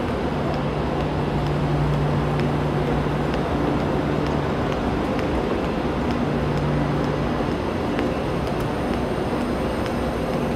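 Steady mechanical hum and rumble of a railway platform beside a standing KTX high-speed train, with faint, regular footsteps on the tiled platform.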